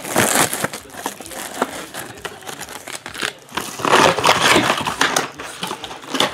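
Plastic shrink wrap from a trading-card box being peeled off and crumpled by hand. The crinkling comes in irregular bursts and is loudest at the very start and again about four seconds in.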